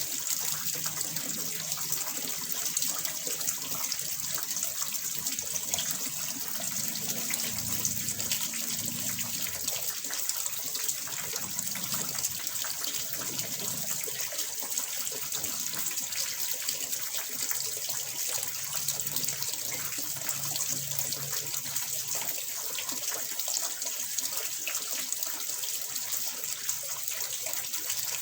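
Water pouring steadily into a small fish pond, a continuous bright splashing that stays the same throughout.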